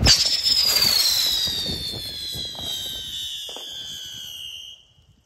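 Small helicopter-type spinning firework whistling as it whirls into the air. The whistle starts high the moment it ignites and falls steadily in pitch as the spin slows, fading out near the end without a bang.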